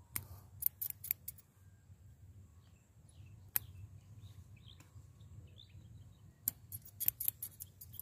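Small hand pruning shears snipping grapevine tendrils off a trellis wire: sharp clicks, several in the first second or so, one near the middle and a quick run near the end. Faint bird chirps come between the cuts.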